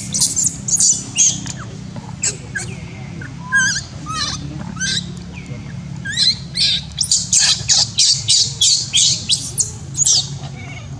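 Baby macaque giving distress squeals: short, high-pitched cries in repeated bursts, scattered at first and then in a rapid run through the second half.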